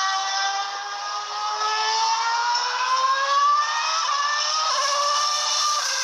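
Ferrari F138 Formula One car's 2.4-litre V8 at high revs, its pitch climbing steadily for about three and a half seconds as it accelerates, then stepping and dipping a few times like gear changes.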